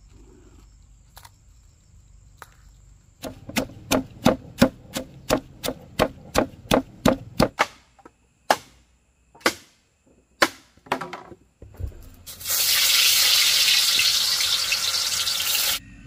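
A quick run of sharp knocks, about four a second for some four seconds, then a few single knocks about a second apart. Then comes about three seconds of loud, even rushing noise that cuts off suddenly.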